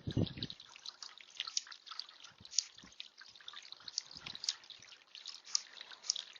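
Water dripping and trickling in a tiered bird bath, with irregular drops falling several times a second. A short low thud comes right at the start.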